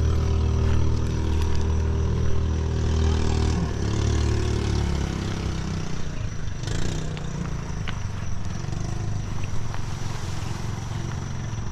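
A motor engine running steadily, then fading away about five seconds in.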